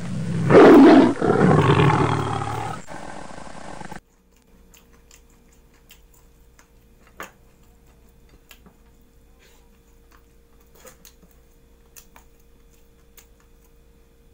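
A big-cat roar sound effect edited in over the bite, loud for about three seconds and cut off sharply about four seconds in. After it, only faint scattered clicks of eating.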